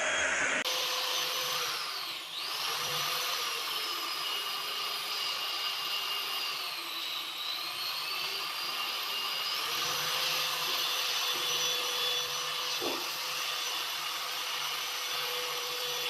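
An electric motor, such as a power tool's, running steadily with a high whine; the pitch sags briefly and recovers twice.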